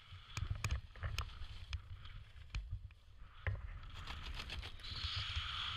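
Wind rushing over a skydiver's helmet-camera microphone: low buffeting with scattered sharp clicks and knocks, and a hiss that grows louder near the end.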